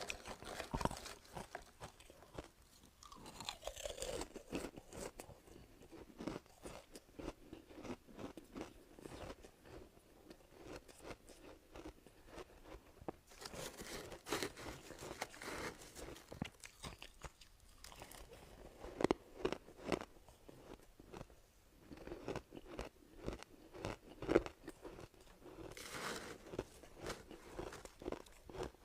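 Close-up crunching and chewing of soft ice: repeated bites breaking the ice into cracking, crackling fragments, in dense irregular runs of crunches.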